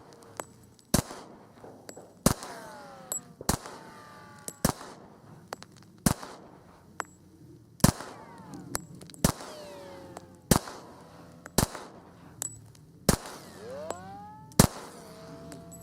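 Springfield XD 45 Tactical, a .45 ACP pistol, fired at a slow, steady pace: about eleven shots, roughly one every second and a half. A ringing follows several of the shots.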